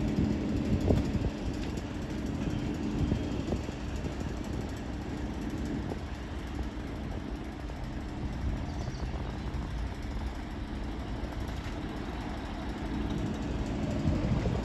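Class 50 diesel locomotive with its English Electric 16-cylinder engine running as it approaches in the distance, a steady low drone.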